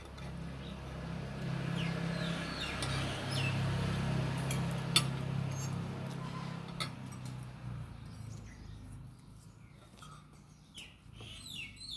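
Birds chirping with short glides, over a low steady hum that fades out about two thirds of the way through, with scattered light clicks and clinks, one sharper click about halfway.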